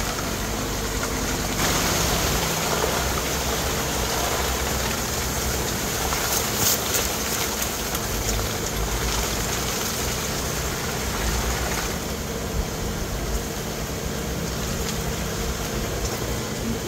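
Jeep Wrangler engine running steadily at low crawling speed, a low rumble under a broad hiss of tyres and brush. The hiss grows louder about two seconds in and eases off around twelve seconds in.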